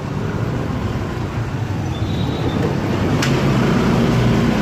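Motorcycle and car traffic running through a road underpass: a low rumble that grows louder toward the end, with one sharp click about three seconds in.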